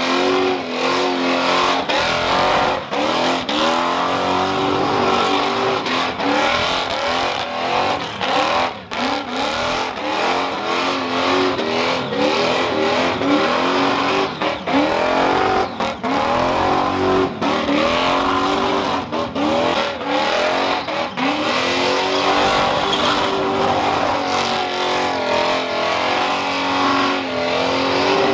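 Ford XB Falcon's supercharged big-block V8 revving hard through a burnout, its pitch climbing and falling back again and again, with a few brief drops in level. The spinning tyres add noise underneath.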